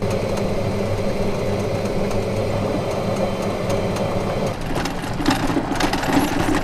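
Electric golf cart with an AC motor driving: a steady hum from the motor and drivetrain, with tyre noise. About four and a half seconds in it turns rougher and more uneven, as the cart runs on a gravel dirt track.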